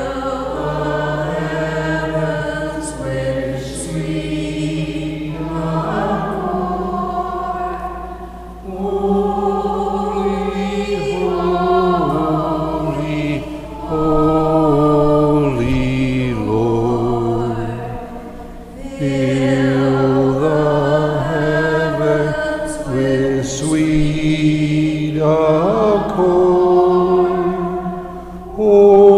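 A woman singing a slow hymn in phrases of a few seconds, with sustained instrumental chords underneath.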